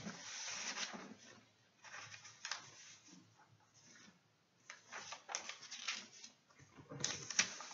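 Soft rustling and light clicks in short bursts, separated by quiet gaps: someone handling things off camera during a pause in talking.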